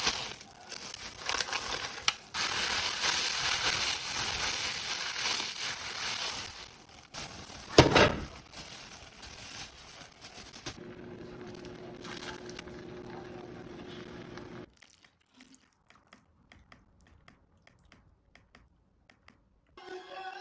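Loud crinkling, crushing noise for about seven seconds, a sharp knock about eight seconds in, then a steady low hum for a few seconds that stops suddenly, leaving near silence.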